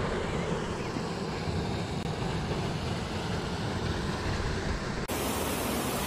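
Steady rushing of a waterfall cascading over rock into a pool. About five seconds in the sound cuts abruptly to a brighter, hissier rush.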